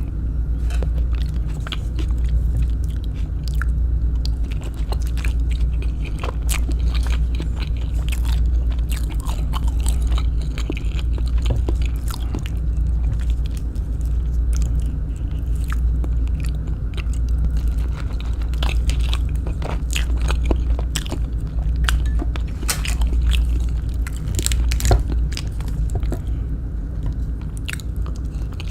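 Close-miked chewing and biting of kwek kwek, deep-fried battered quail eggs: wet mouth sounds with many small crunches and clicks all through, over a steady low hum.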